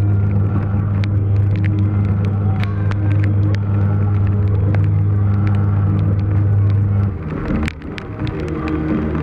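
Amutec Tweenies kiddie ride running with no music: its electric drive motor hums steadily with light scattered ticks, then cuts out about seven seconds in as the ride stops.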